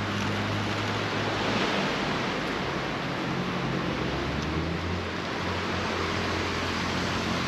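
Steady rushing of sea waves washing onto the beach, with a low steady hum underneath.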